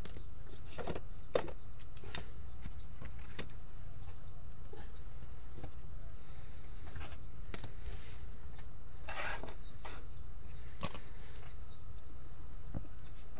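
Trading cards being handled and shuffled by hand: scattered light clicks and soft rustles of card edges and sleeves, over a steady low hum.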